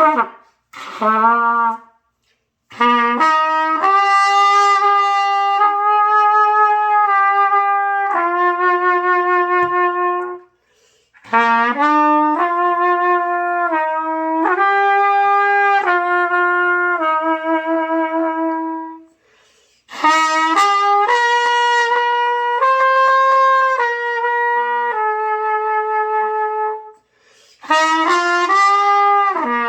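A trumpet playing do-mi-sol practice: held notes stepping up and down through the tones of the chord in four phrases, with short breaths between them. It is played by a beginner learning to sound these notes.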